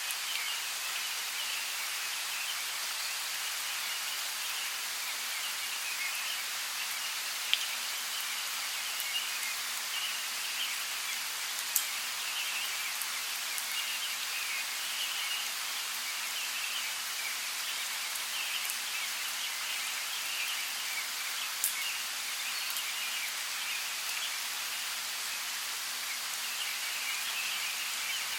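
Steady rainforest rain falling on foliage, an even hiss with a few sharp, louder drips standing out.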